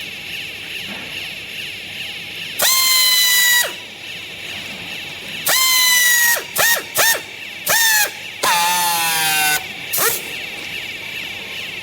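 Vertical hydraulic baler working: a steady hiss with a series of loud, high-pitched squeals over it. Some squeals last about a second and others are brief, and each one sags slightly in pitch as it ends.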